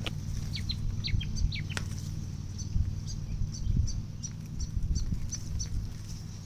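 Small birds chirping: a run of short, falling chirps in the first two seconds, then quick, high peeps repeating, over a steady low rumble.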